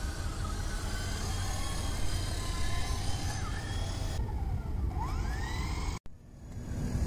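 Wind buffeting the microphone over the thin whine of a WLtoys V915 RC helicopter's brushed electric motor, its pitch gliding up about five seconds in. The sound breaks off sharply about six seconds in.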